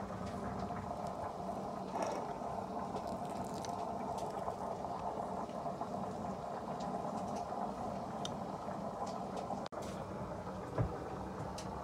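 Steady background hum with faint scattered clicks, and one soft thump near the end.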